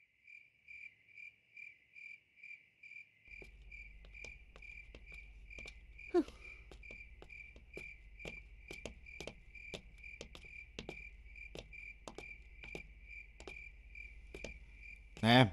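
Crickets chirping steadily in a fast, even pulse, with regular sharp ticks about two or three a second. A brief falling squeak about six seconds in is the loudest moment.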